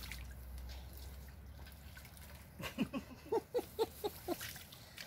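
Hands groping in shallow muddy stream water. About halfway through there is a quick run of about seven short gurgling glugs, roughly four a second.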